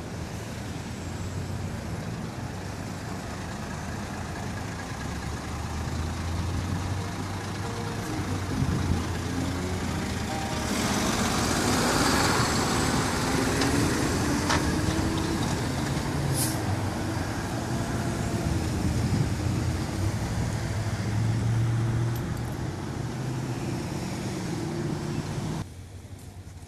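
Diesel engine of a white UD cab-over box truck accelerating past at close range, its engine pitch rising, with tyre and road noise swelling as the box body goes by, and a short hiss about sixteen seconds in. Background traffic noise underneath, and the sound drops sharply near the end.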